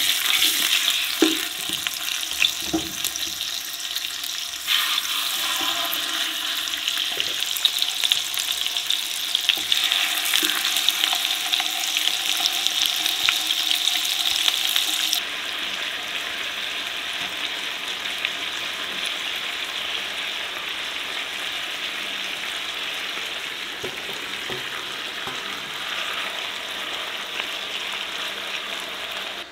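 Chicken legs sizzling in hot oil in a large granite-coated pot: a loud, steady sizzle, with a few soft knocks in the first few seconds. About fifteen seconds in, the sizzle softens and loses its sharpest hiss.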